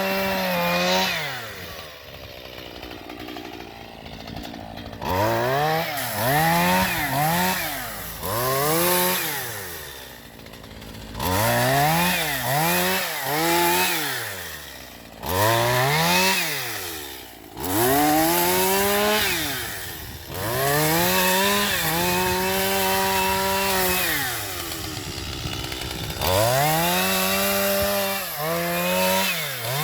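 Chainsaw engine revved up and let fall back toward idle over and over, about once a second in places, with longer stretches held at a high steady pitch.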